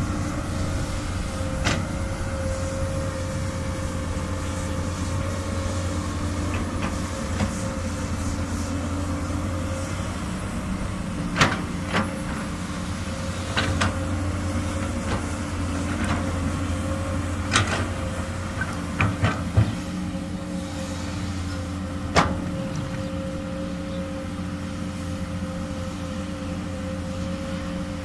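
Komatsu PC200 excavator's diesel engine running steadily, with scattered sharp knocks from the working machine, several of them bunched near the middle.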